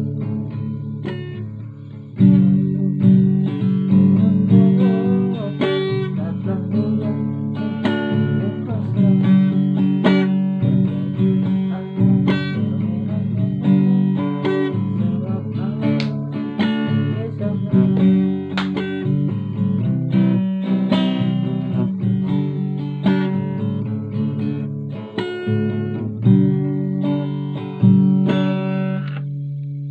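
Guitar music: a plucked guitar playing a run of quick notes over held low notes, the last notes ringing out at the end.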